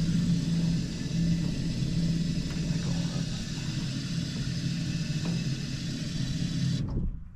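Electric trolling motor running steadily with a low hum and prop wash, holding the boat against the river current. It cuts off abruptly near the end.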